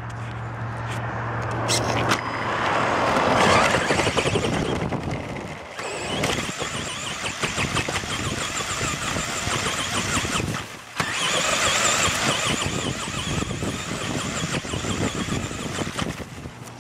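Electric RC buggy heard from a camera mounted on the car: the motor and gearbox whine and the tyres rattle and scrape over the ground as it is driven, with the throttle let off briefly twice, near six and eleven seconds in.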